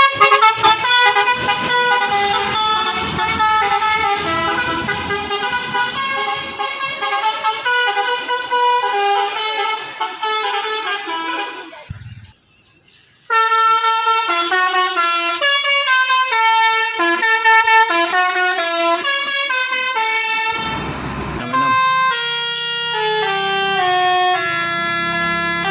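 Musical 'basuri' horn on a Padang–Jakarta intercity bus playing a tune in a run of stepped, held notes. It breaks off into a second of near silence about halfway through, and another horn melody starts. A short rushing noise cuts in about three quarters of the way through.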